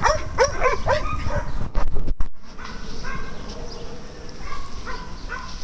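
Dogs barking: a quick run of short barks in the first two seconds, then a few fainter, higher-pitched yips.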